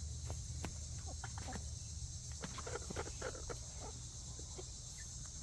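Steady high-pitched chirring of crickets, with a few soft clucks and light scratching from chickens dust bathing in the dirt.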